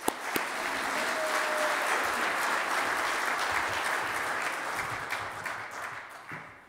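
Audience applauding. The clapping starts at once and dies away over the last second or so.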